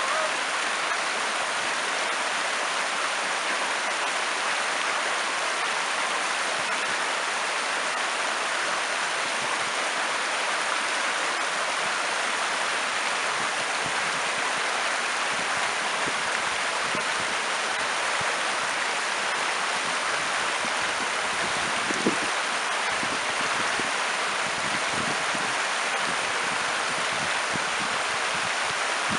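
A river flowing, a steady, unbroken rush of water, with one brief tap about two-thirds of the way through.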